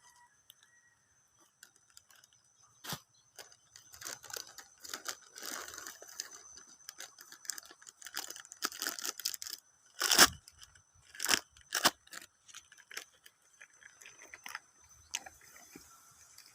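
Scattered handling noises: rustling, clicks and a few sharp knocks, the loudest a little after ten seconds in and twice more about a second later, over a faint steady high-pitched tone.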